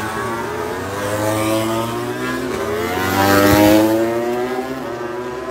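MotoGP race motorcycle engines revving, their pitch rising and falling, loudest at about three and a half seconds in as a bike accelerates past.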